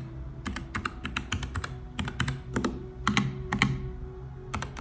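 Typing on a Nuphy Air60 low-profile mechanical keyboard with Gateron Brown switches: irregular key clacks, some in quick runs of several strokes.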